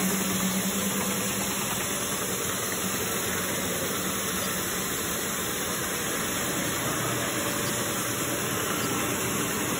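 Tennant T16 battery-powered ride-on floor scrubber running with a steady mechanical whir. A low hum under it fades after about two seconds.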